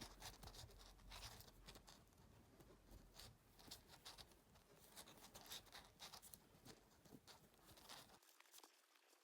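Faint, irregular rustling and light ticks of a crochet hook pulling cord through half double crochet stitches. A faint low hum cuts off about eight seconds in.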